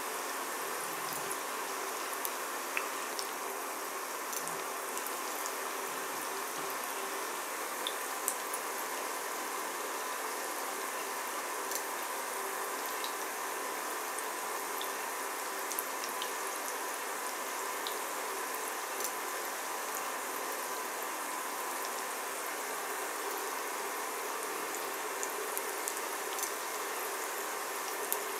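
Breaded chicken nuggets shallow-frying in oil in a ceramic pan on an induction cooker: a steady sizzle with scattered small pops and crackles, over a faint steady hum.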